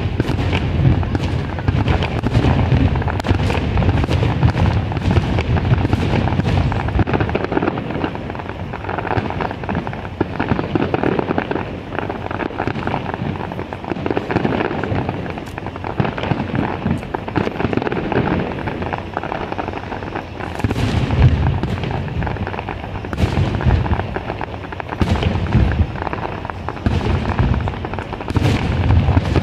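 Fireworks display in a dense, unbroken barrage of aerial shell bursts, deep booms overlapping with sharp cracks. It starts suddenly loud, eases slightly in the middle, and the heaviest booms return about 20 seconds in and near the end.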